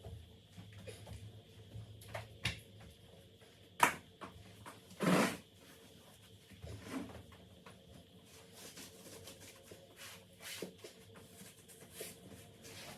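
Scattered light knocks, clicks and rubbing of objects being handled, with a sharp click about four seconds in and a louder short thump about a second later.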